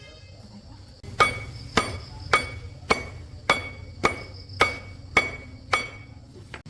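Hammer striking metal: nine steady, evenly paced blows, a little under two a second, each with a short metallic ring, starting about a second in.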